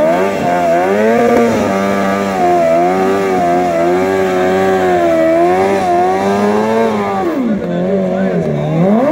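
BMW S1000RR's inline-four engine held at high revs during a stationary rear-tyre burnout, the pitch wavering as the throttle is worked. The revs drop sharply about seven and a half seconds in, then climb back near the end.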